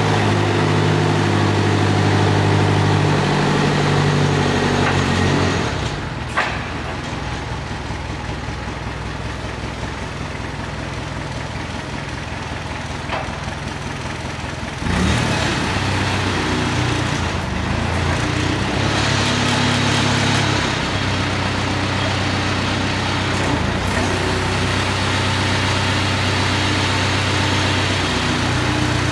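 Diesel engine of a 2006 Donkey 5,000 lb truck-mounted forklift running, revved at first, dropping back toward idle about six seconds in, then revving up again about halfway through.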